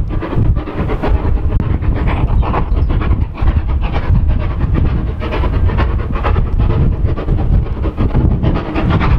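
Steam locomotive approaching under power, its exhaust beating in a rapid run of chuffs over a steady low rumble.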